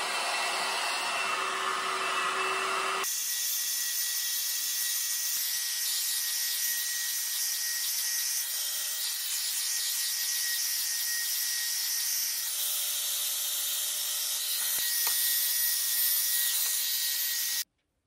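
One-step volumizing hot-air brush dryer running steadily: an even fan-and-airflow hiss with a thin steady whine. The sound changes abruptly about three seconds in and cuts off suddenly near the end.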